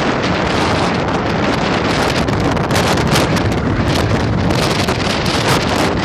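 Strong wind blowing across the microphone: a loud, steady rushing that flutters in quick gusts.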